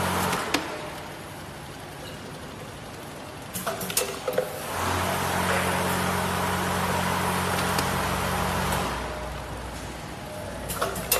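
Vibratory bowl feeders of a scoop feeding machine buzzing with a steady low hum. The hum switches on and off: it stops just after the start, comes back about five seconds in, and stops again about four seconds later. Short clicks and rattles come around four seconds in and again near the end.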